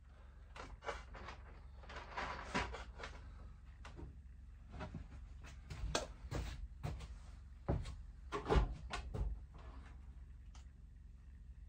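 Knocks and clunks of household items being picked up and set down on wooden shelving, an irregular run of handling sounds with the loudest clunk about three quarters of the way through.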